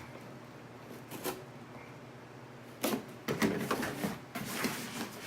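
Cardboard subscription box being opened and handled: a faint click about a second in, then a run of sharp scrapes and rustles from about three seconds in.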